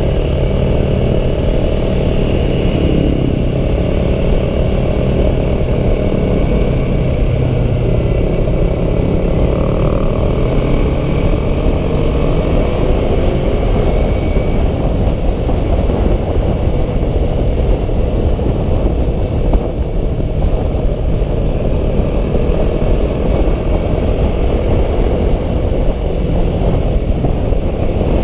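A Yamaha R3's parallel-twin engine running steadily while riding at road speed, heard on board with steady wind noise over the microphone.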